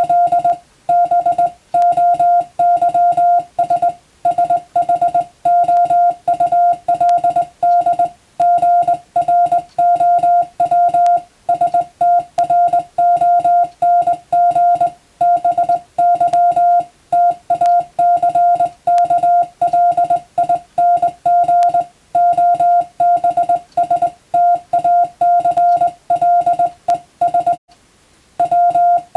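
Morse code sent as a steady mid-pitched beep keyed on and off in short and long elements (dits and dahs), as in radiotelegraph (CW) receiving practice. It runs on without a break apart from one short pause near the end.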